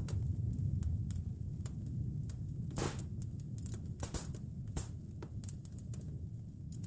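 Wood fire in a fireplace crackling: irregular sharp pops and snaps, the strongest about three seconds in, over a steady low rumble.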